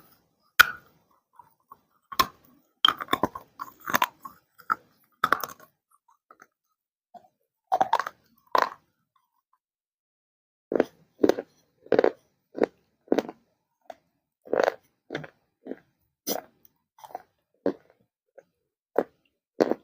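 Dry baked clay crunching as it is bitten and chewed: a few irregular crunches, two more after a short pause, then a steady run of chewing crunches a little under two a second from about halfway.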